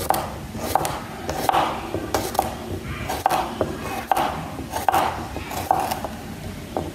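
A kitchen knife slicing a cucumber into thin rounds on a plastic chopping board: a steady run of about eight or nine chops, each a short crunch through the cucumber ending in a knock of the blade on the board, a little faster than one a second.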